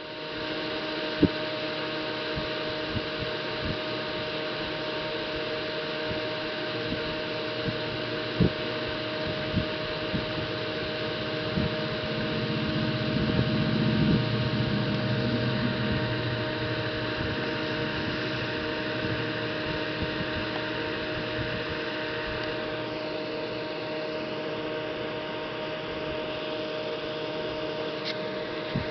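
Steady mechanical hum with several fixed tones, swelling a little in the low end about halfway through, and a few scattered sharp clicks.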